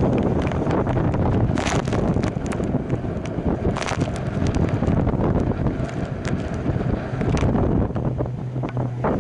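Wind buffeting the microphone over the rush and splash of a Newick Tremolino trimaran's hulls driving through choppy water. A few sharper splashes break through, about a second and a half, four and seven and a half seconds in.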